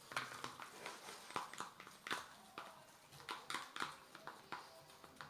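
Soft, irregular clicks and taps, a few a second, from objects being handled on a table while slime ingredients are added.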